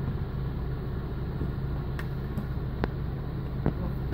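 Engine of the crane lifting the building, running steadily with a low drone, with a few sharp knocks in the second half.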